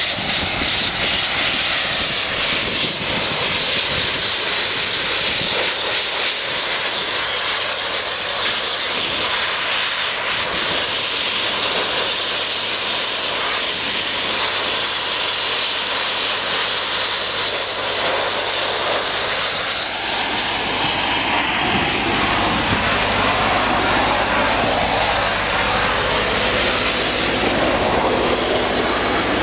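Sandblasting nozzle hissing steadily as abrasive blasts a concrete curb. About twenty seconds in, a steady low hum of the air compressor's engine joins the hiss.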